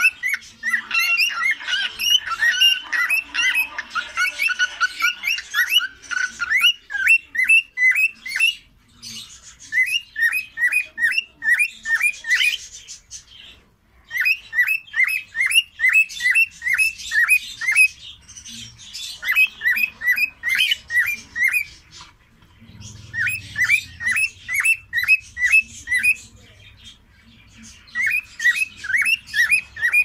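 Cockatiels whistling: runs of short, quick, upward-sweeping notes, about three a second, in bursts of a few seconds with brief pauses between. The calls are dense and overlapping for the first few seconds.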